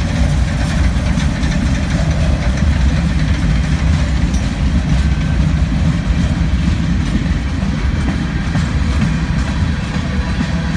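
Freight train cars rolling past close by: a steady, loud rumble of steel wheels on rail with faint clicks.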